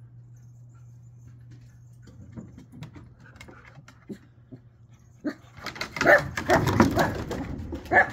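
Dogs barking and yelping excitedly. The sound starts about halfway through and grows loud, with the sharpest cries near the end, over a faint low hum.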